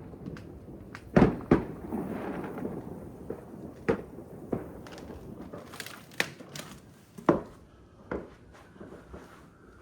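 Fireworks going off: a string of sharp bangs with crackling between them in the first few seconds, growing sparser and fainter toward the end.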